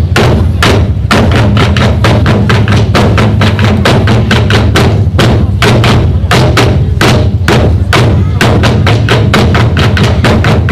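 Ensemble of Korean drums struck together in a fast, driving rhythm, several strokes a second, with a steady low drone under the beats.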